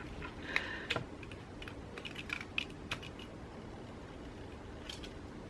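Light, irregular clicks and taps of small parts and tools being handled while working inside a smartphone, mostly in the first three seconds, with a couple more near the end.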